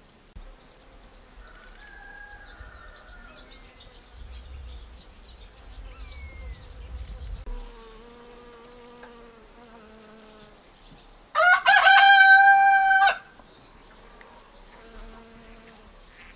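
A rooster crows once, loud, for about two seconds, starting about eleven seconds in. Small birds chirp faintly throughout, and there are fainter, lower fowl calls in the middle.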